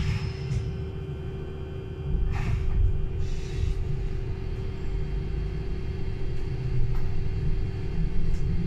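Solaris Urbino 12 Hydrogen fuel-cell electric bus running: a steady hum over a low rumble, with a click at the start and two short hisses about two and a half and three and a half seconds in. The rumble grows louder from about two seconds in.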